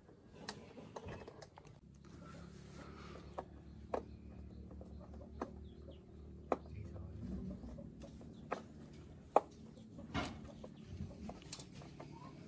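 Chickens clucking over a low steady hum, with about ten scattered sharp knocks or taps; the loudest knock comes about nine seconds in.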